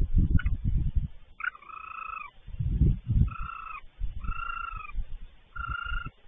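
A frog calling repeatedly with short trills of even pitch, about one a second, over uneven low rustling and thumps.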